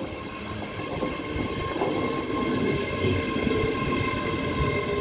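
ScotRail Class 385 electric multiple unit, two units coupled, running into the platform: a steady electric whine of several held tones over the rumble of the wheels, growing louder as it draws alongside.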